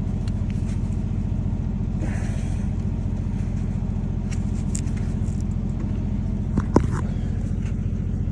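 Heavy machine's engine idling steadily, with a couple of short sharp knocks about six and a half seconds in.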